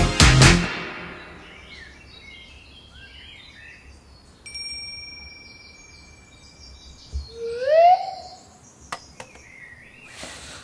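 Music dies away in the first second, then soft bird chirps and calls. A steady whistle-like tone holds for a couple of seconds in the middle, and a short rising squeal comes about eight seconds in.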